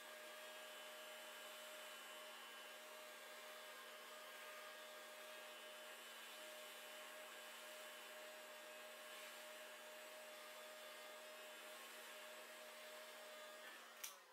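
Handheld heat gun running: a faint, steady fan-motor hum with rushing air. It is switched off with a click near the end.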